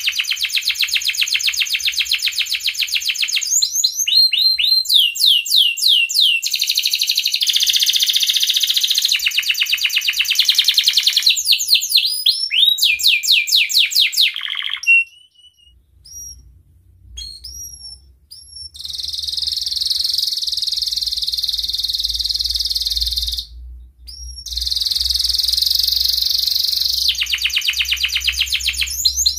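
Domestic canary, a male in breeding condition, singing: long, very fast trills alternating with runs of sweeping whistled notes. About halfway through the song pauses for a few seconds, with only a few short chirps, then the trills resume.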